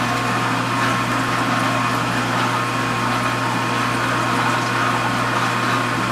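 Vintage KitchenAid KDS-18 Superba dishwasher running with a steady motor hum and an even hiss of water. The machine is not advancing through its cycle, which the owner puts down to its mechanical timer getting stuck.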